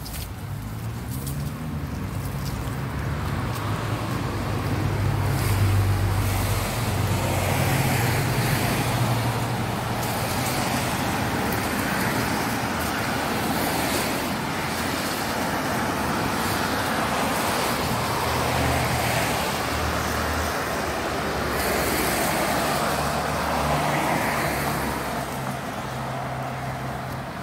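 Road traffic on a damp street: a steady low engine hum with tyre hiss from passing cars, swelling and fading as each goes by.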